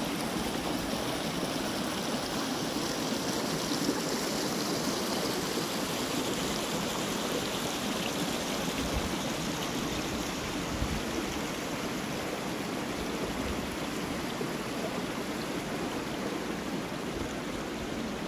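Small shallow stream running steadily over rocks: an even, continuous water noise.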